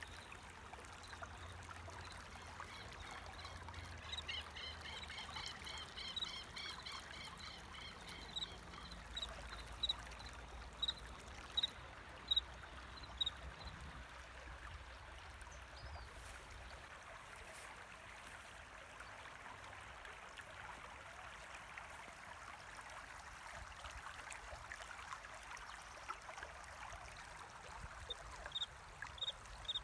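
Water flowing and trickling steadily, with a cricket chirping in short, evenly spaced high chirps, a little faster than one a second, that stop about halfway and return near the end. A second, faster pulsing trill sounds from about 4 to 9 seconds in.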